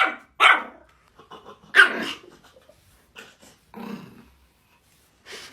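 A dog barking: three loud barks in the first two seconds, then a few quieter ones.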